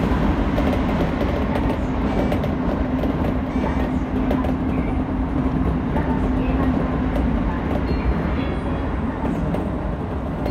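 Keisei 3000-series electric train running at speed, heard from inside the driver's cab: a steady rumble of wheels on rail. A steady low hum fades out about seven seconds in. At the start, an oncoming train is passing alongside.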